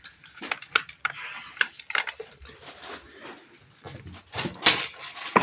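Irregular clicks, knocks and light clattering of small hard objects being handled, with a louder scraping rustle shortly before the end.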